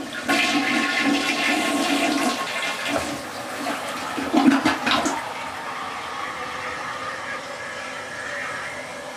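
Toilet flushing: water rushes loudly for about five seconds, then settles into a quieter steady hiss of the tank refilling. The toilet flushes normally and is not broken.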